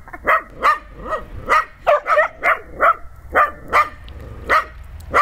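Puppy yapping over and over in short, sharp barks, about two a second.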